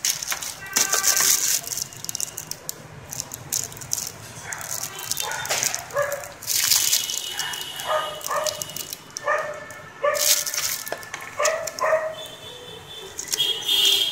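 Thin plastic packaging crinkling and rustling in bursts as the bagged remote control and cables are handled. Short, high-pitched cries come several times in the background through the middle.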